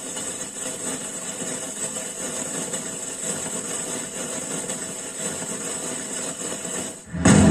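Firecracker sound effect played through a speaker by a pixel-LED cracker tree controller: a steady, rough, dense noise, jumping to a louder burst near the end.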